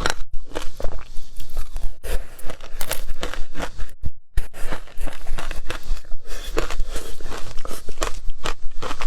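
Close-up crunching and biting of frozen passion fruit shaved ice, a fast, irregular run of crisp crunches with a brief pause about four seconds in.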